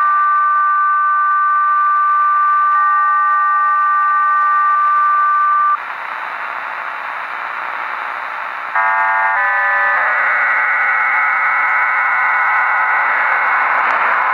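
HM01 Cuban numbers station's digital data signal over shortwave static: a steady two-tone carrier for about six seconds, a few seconds of plain static hiss, then a short run of stepped tones and a dense many-tone data burst from about ten seconds in.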